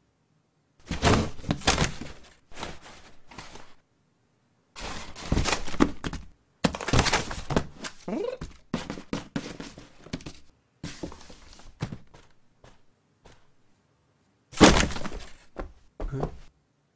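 Bursts of thumps and clattering knocks, several in quick succession each time, with short silent gaps between the bursts.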